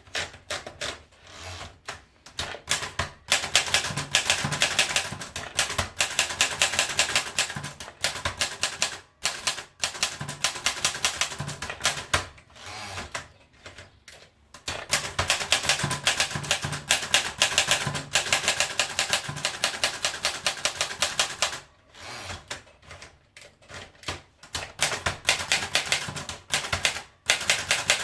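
Remington Portable Model 5 manual typewriter being typed on: fast runs of sharp key strikes, broken by short pauses every few seconds.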